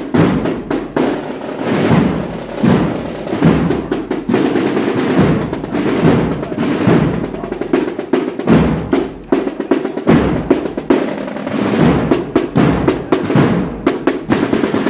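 The drum section of a processional marching band playing a march on field drums, with rolls and quick, steady strokes.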